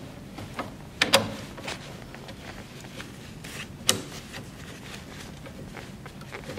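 Sharp plastic-on-metal clicks as a diaper changer's plastic foot is slid along its metal tube and onto the spring button, over fabric rustling: two clicks close together about a second in and one more a little before four seconds.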